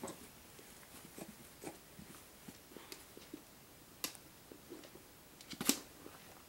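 Quiet room with soft, brief sounds from a young baby lying on a play mat, small grunts and coos, among faint scattered clicks. A sharp click comes about four seconds in and a louder short knock near the end.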